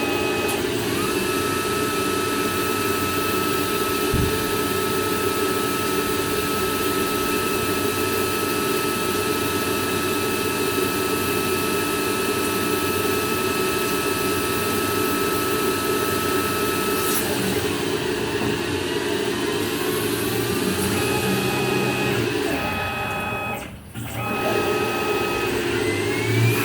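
Metal lathe running with a steady motor and spindle whine carrying a constant high tone. About two-thirds through the tone fades and the pitch glides, the sound briefly dips near the end, then a rising whine comes in.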